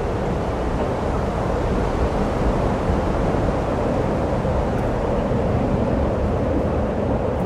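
Steady rumbling background noise with no distinct events, even in level throughout.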